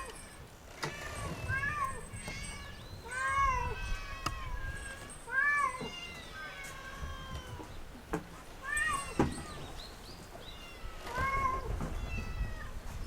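Several cats meowing again and again, a call every second or two, each rising and falling in pitch: cats begging a fisherman for small fish. A low rumble and a few sharp knocks sound underneath.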